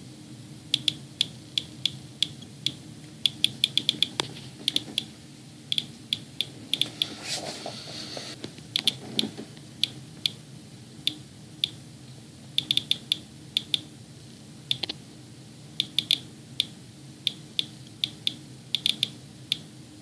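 Inspector Geiger counter clicking at random intervals, about two clicks a second on average with irregular clusters, each click a detected count from the radioactivity the owner finds trapped in his air filter (display near 130 to 150 counts per minute). A faint low steady hum runs underneath.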